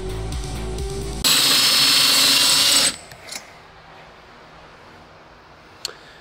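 Electronic music for about the first second, then a cordless drill runs at full speed for under two seconds and stops suddenly, followed by a couple of light clicks. The bit is making little headway; the user thinks it is probably a wood drill bit.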